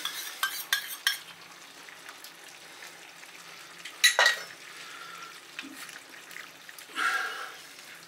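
A spoon clinks and scrapes in a small metal cup of cornflour slurry, over a faint steady sizzle from the stir-fry sauce in the pan. There is a sharp clink about four seconds in. Near the end a silicone spatula stirs through the vegetables and sauce.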